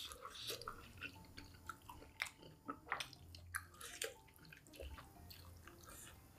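Close-up chewing of KFC fried chicken: irregular, wet mouth clicks with small crunches.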